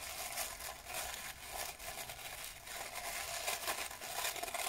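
Tissue paper crinkling and rustling as it is pulled open by hand, in a rapid run of short, irregular crackles.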